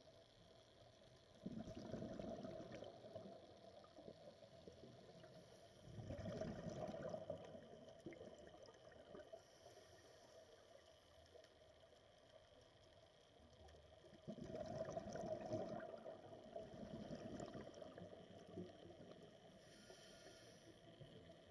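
Scuba regulator exhaust bubbles from a diver's exhalations, heard underwater: three bubbling rushes of a couple of seconds each, a few seconds apart.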